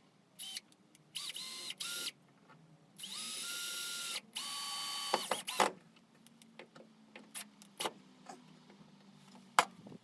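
Power drill run in five short trigger bursts, its motor whine rising quickly to a steady pitch each time, the two longest about a second. Scattered clicks and knocks follow, with a sharp knock near the end.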